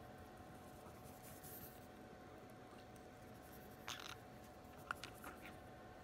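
Near silence: room tone with a faint steady hum, broken by a brief scratchy rustle about four seconds in and a faint click about a second later.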